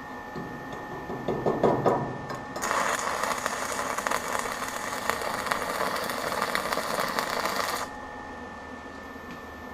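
Stick (MMA) arc welding with a 16TC electrode on steel plate. About a second of rough sputtering as the rod is struck, then the arc catches and crackles steadily for about five seconds before cutting off sharply as the arc is broken, the length of a short tack weld.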